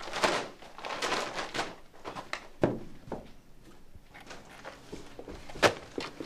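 Rustling of a paper gift bag being swung, then scattered knocks and thuds as things are handled on a wooden counter, the sharpest knock about five and a half seconds in.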